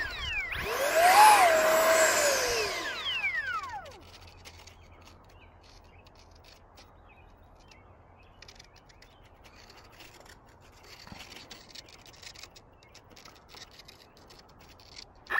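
RC plane's electric motor and propeller spun up for about three seconds, the whine rising in pitch, holding, then falling away. Mostly quiet after that apart from faint rustling and clicks, until the motor begins to spool up again at the very end.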